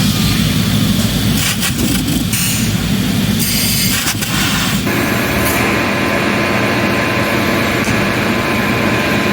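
Loud, steady machinery running, a low rumble mixed with noise; its sound shifts about five seconds in, when a faint steady tone joins it.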